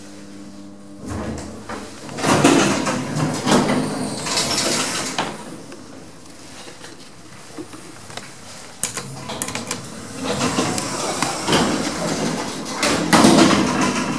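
Sliding lift doors of a 1960s Marryat & Scott lift running open or shut twice, each time a rattling, clunking run of a few seconds, with a steady hum in the quieter stretches.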